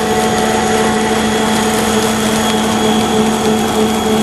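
Pet food extrusion line machinery running: a loud, steady mechanical drone with a constant hum.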